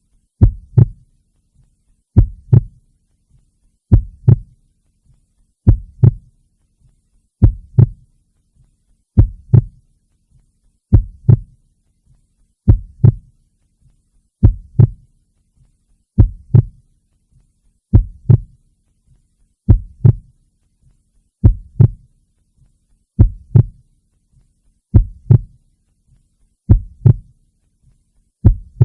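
Heartbeat: a slow, steady lub-dub, each beat two quick low thumps close together, repeating evenly a little under every two seconds, over a faint low hum.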